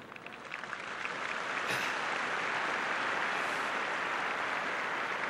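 A large stadium crowd applauding, swelling over the first second and then holding steady.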